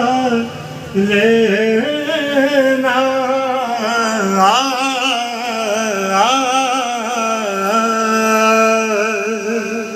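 A singer's long, drawn-out vocal phrases with no clear words, the pitch wavering and ornamented throughout, heard through an MPRO DM-35 microphone and mixing console.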